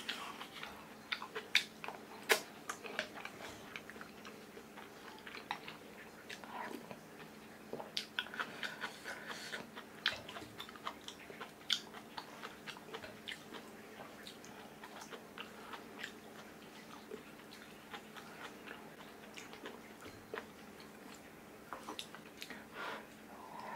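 Close-up chewing and mouth sounds of someone eating kimchi stew, with scattered short clicks and knocks of a wooden spoon against earthenware bowls. A faint steady low hum runs underneath.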